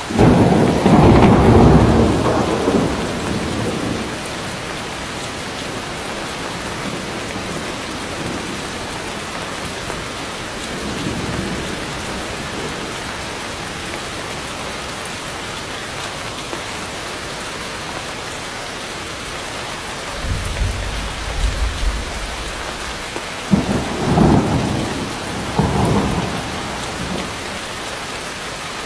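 Heavy rain falling steadily on dense forest foliage, with thunder. A loud clap and rumble comes right at the start and dies away over about three seconds. A deep, low rumble follows about two-thirds of the way through, then two more rolls of thunder near the end.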